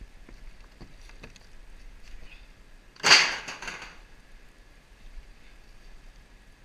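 Rotted RV roof framing and panelling being torn apart by hand: small cracks and crackles, then one loud sudden crack and tear about three seconds in that dies away over about a second.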